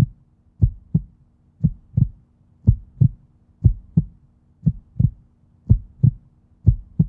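Heartbeat sound effect: paired low thumps, a lub-dub about once a second, over a faint steady low hum.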